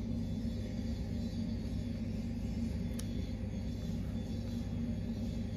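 Steady low drone, with a single light click about three seconds in.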